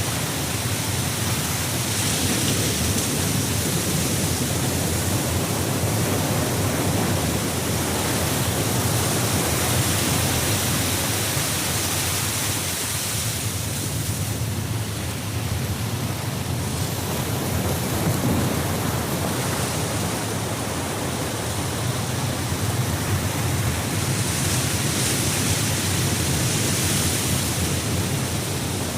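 A steady rushing noise with no distinct events, swelling and easing slowly over several seconds.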